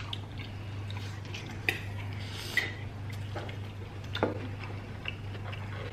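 Metal forks clicking and scraping against a stone serving platter while eating: a few scattered sharp clicks and a brief scrape about two and a half seconds in, over a low steady hum.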